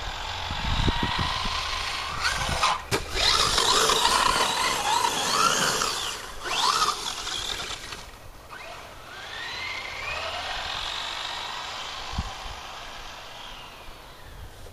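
Brushless motor of a Traxxas Stampede 4x4 RC truck on a 3S LiPo whining as it speeds up and slows down again and again, loudest in the first half, with a quieter rise and fall later on.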